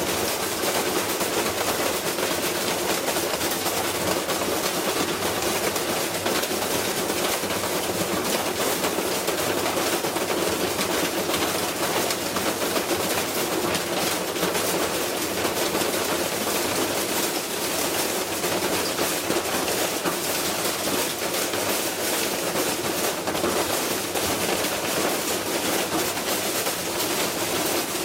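Continuous mechanical clattering and rattling, a dense stream of rapid knocks.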